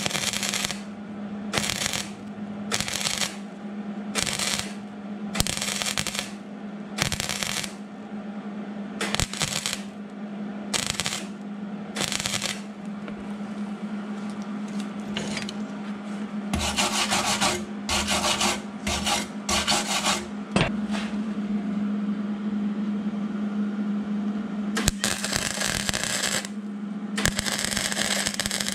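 Hobart 140 MIG welder running flux-core wire, laying short tack and stitch welds on sheet steel: a long series of crackling bursts, each about half a second to a second and a half long, starting and stopping sharply with short gaps between them, over a steady low hum.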